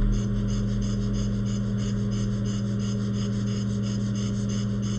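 Steady electrical hum from repair-bench equipment, with a fast, even pulsing in the upper range at about four to five pulses a second.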